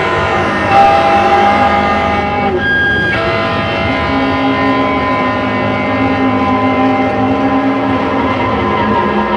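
Noise music played live: a loud, dense wall of sustained droning tones over distorted noise. The pitches shift every second or two, and the highs briefly thin out about two and a half seconds in.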